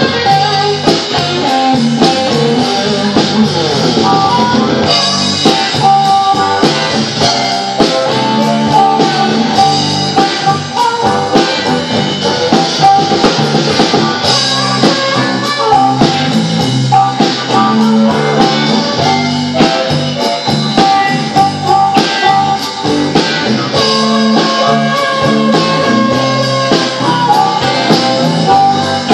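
A blues band playing live: electric guitar over a drum kit, with a steady beat throughout.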